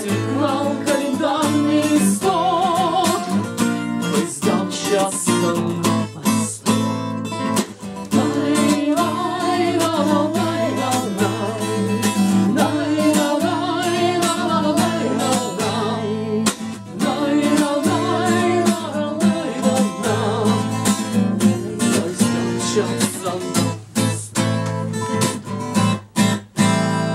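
Acoustic guitar strummed in a steady rhythm, with a voice singing a wordless melody over it. Near the end the strumming turns choppy, with short gaps between strokes.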